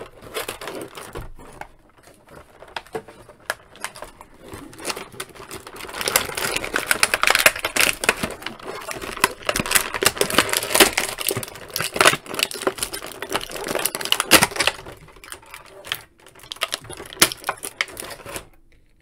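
Clear plastic blister tray crackling and clicking as action figures are handled and pulled out of it, a dense run of sharp crinkles that is busiest in the middle and stops suddenly near the end.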